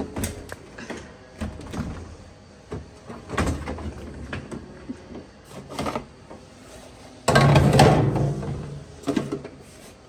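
Dishwasher door opened and its rack of plastic calf feeding bottles handled: a run of clicks, knocks and plastic clatters, with a louder rattling rumble for about a second a little past seven seconds in.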